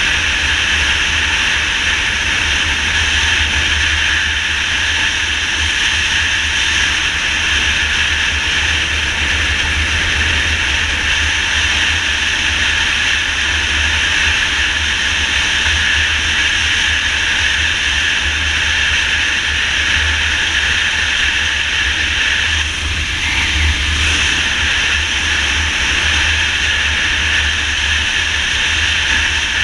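Steady rush of wind buffeting the microphone of a motorcycle riding fast on a highway, over the bike's engine and road noise. It eases slightly for a moment a little past twenty seconds in.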